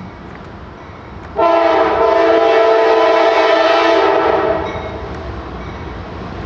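Air horn of a CSX freight train's lead locomotive, a GE CW44AC, sounding one long blast of about three seconds with several notes together. It starts suddenly about a second and a half in. Afterwards the passing train's steady rumble continues.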